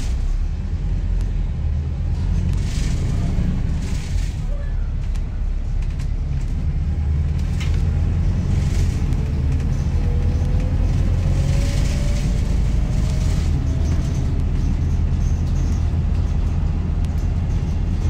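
Inside a Volvo B5TL / Wright Gemini 3 double-decker bus under way: a steady low diesel rumble, with a whine that slowly rises in pitch through the middle as the bus picks up speed. Scattered clicks and knocks of interior panels rattling run through it.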